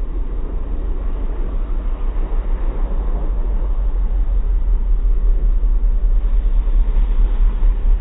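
Subaru Impreza's flat-four engine running hard as the car slides through snow with its wheels spinning, getting louder as it comes closer.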